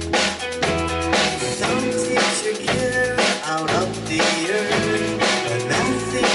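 Rock band playing an instrumental passage: drum kit with bass drum and snare hits over bass guitar, guitar and keyboard.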